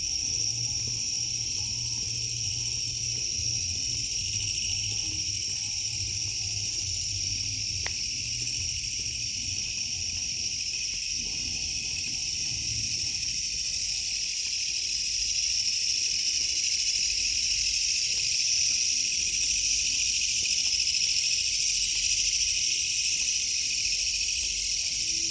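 Night-time insect chorus, crickets and other insects trilling in a steady, dense, high-pitched drone, with a faint regular higher chirp about once a second in the first several seconds. The chorus grows a little louder about two-thirds of the way through.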